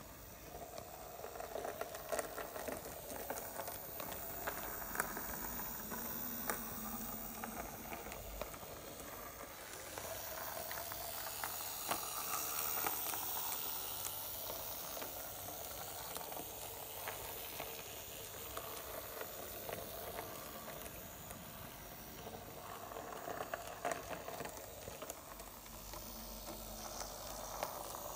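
Model VT 98 railbus running on the layout's track: a steady, hissy running noise with a few small clicks.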